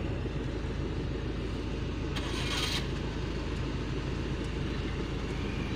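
Steady low rumble of a car's engine and road noise heard from inside the cabin while it moves slowly in toll-plaza traffic. A short hiss cuts in about two seconds in.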